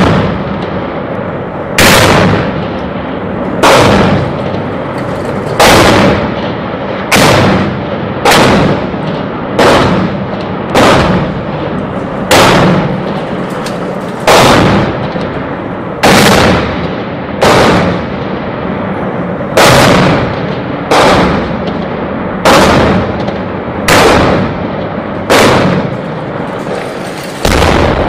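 Heavy gunfire: about twenty loud single shots, roughly one every one and a half seconds at uneven intervals, each trailing off in a long echo.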